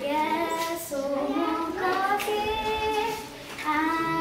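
A child singing solo, holding notes in sung phrases, with a brief break about three and a half seconds in before the next phrase starts.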